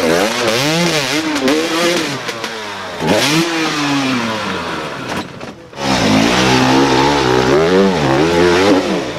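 Enduro dirt bike engines revving up and down in repeated throttle blips, about two a second, as the riders work over rocks and roots. The sound dips briefly about five and a half seconds in, then another bike carries on with the same rising and falling revs.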